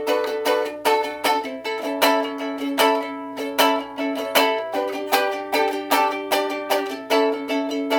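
Acoustic string instrument strummed in a steady rhythm of chords, an instrumental passage of a song with no singing.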